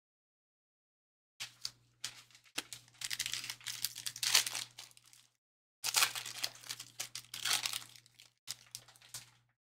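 Plastic wrappers of trading-card packs being torn open and crinkled by hand, in three stretches of irregular crackling about a second and a half in, in the middle and near the end.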